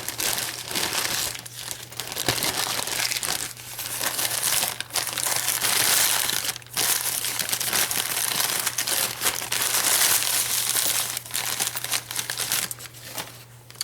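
Packing material crinkling and crumpling in irregular bursts as it is unwrapped and pulled apart by hand.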